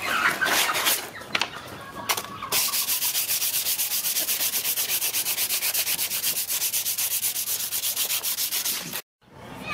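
A cloth pad rubbed rapidly back and forth over a steel butcher's knife blade lying on wooden planks. It makes an even swishing hiss at several strokes a second, after a brief scrape at the start, and cuts off abruptly about nine seconds in. The blade is being hand-polished.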